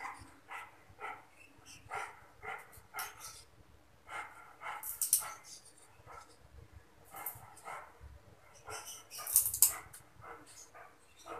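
A dog barking in short, repeated yips. Louder crackles come about five seconds in and again near the end, from a small plastic packet crinkling in the hands.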